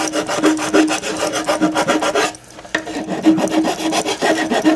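Rapid back-and-forth scraping strokes on the broken plastic pipe of a Dyson DC25 vacuum, roughing and cleaning the plastic to prepare it for epoxy, with a short pause about two and a half seconds in.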